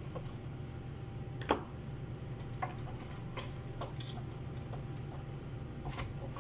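Light, irregular clicks and taps of hands working on the circuit boards and screws inside an open electrosurgical unit's metal chassis, about eight over a few seconds, over a low steady hum.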